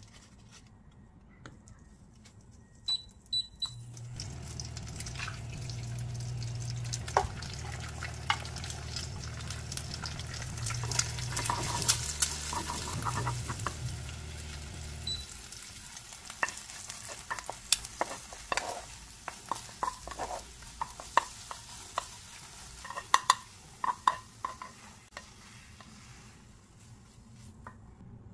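Eggs cooking in butter in a nonstick frying pan, sizzling while a wooden spoon stirs them, with many light taps and scrapes of the spoon on the pan. A low hum runs from about four seconds in to about fifteen, and the sizzle dies down after that.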